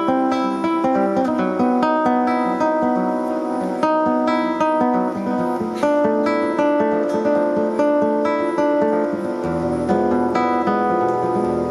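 Acoustic guitar music, plucked and strummed notes in a steady flowing pattern. A deep bass note joins about nine and a half seconds in.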